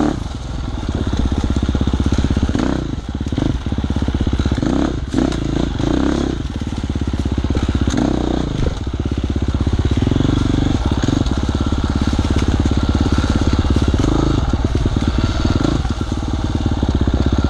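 Dirt bike engine running as it is ridden along a rough trail, heard from the rider's seat, with the throttle easing off briefly a couple of times before picking up again.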